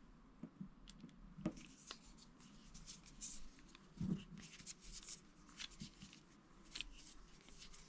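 Faint scattered clicks and scraping of hand work on a motorcycle heated-grip assembly while a small T10 Torx screw is fitted, with a sharper click about 1.5 s in and another about 4 s in.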